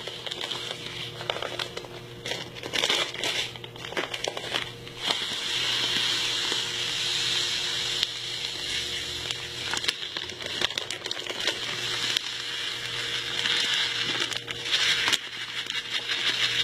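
Dry bulgur wheat pouring from its plastic packet into a bowl of water: a steady grainy hiss, heaviest through the middle, with crinkles and crackles from the packet.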